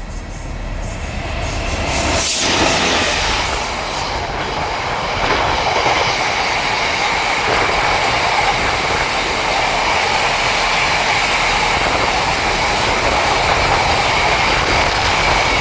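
Freight train hauled by a Class 66 diesel locomotive passing at speed, its wagons rumbling and clattering over the rail joints with a steady high-pitched wheel squeal. The sound grows louder about two seconds in and then stays steady.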